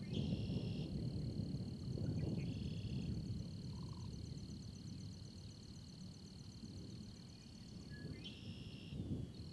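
Night insects: one steady high-pitched trill throughout, with another insect's short buzzy calls three times (near the start, about two and a half seconds in, and near the end), over a low, uneven rumble from the storm.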